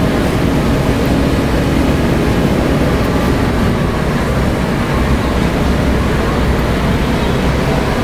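Heavy diesel engines of a bulldozer and a dump truck at work, a steady low rumble.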